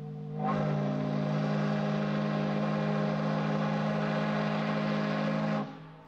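The steam whistle of the sternwheel steamboat Natchez blows one long, steady blast of several notes at once, with a hiss of steam over it. It swells up about half a second in and cuts off shortly before the end.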